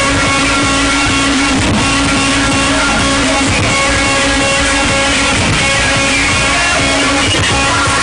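Music with guitar, played at very high volume through a car trunk sound system. It is dense and unbroken, with no pauses.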